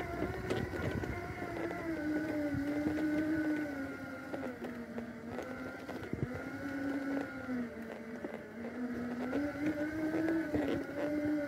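Electric drive motors of a Magic Mobility Extreme X8 power wheelchair whining as it drives along a rough dirt track, the pitch sliding up and down with speed and load. Scattered knocks and rumble come from the wheels going over the bumpy ground.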